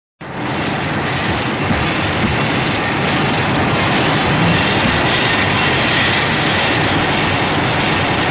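Monster-film sound effect: a loud, steady rushing noise that starts abruptly and spreads from a deep rumble up to a high hiss.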